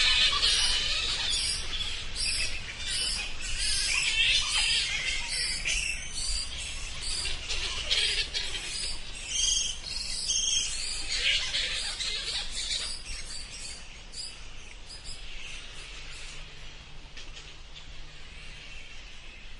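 A group of bats squeaking and chittering in rapid, overlapping high-pitched chirps. The calls thin out and grow quieter over the last several seconds.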